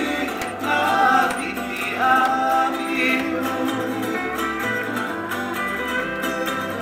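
Music with a singing voice over plucked-string accompaniment, playing continuously.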